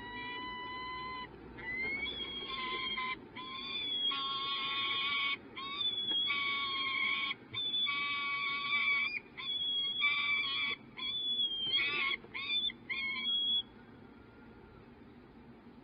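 Peregrine falcon pair calling during copulation: a long run of loud, drawn-out, high-pitched calls, one after another with short breaks. The calls stop abruptly a couple of seconds before the end.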